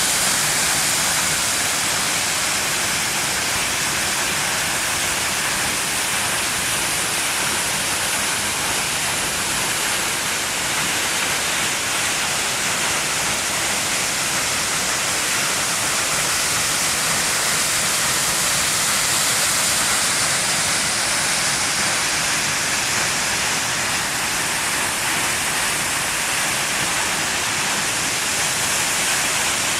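Tall waterfall's water dropping in a direct free fall and crashing into its pool, a steady hiss of falling water.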